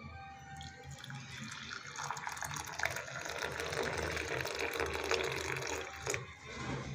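Hot milky chai poured in a thin stream into a porcelain teacup, splashing and frothing as the cup fills. The pour breaks off about six seconds in.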